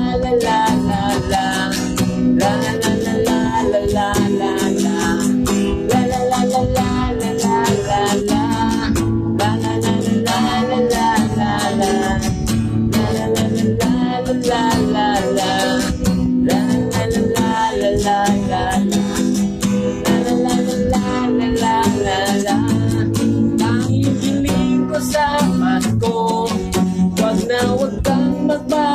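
Acoustic guitar strummed steadily through an instrumental passage of a song.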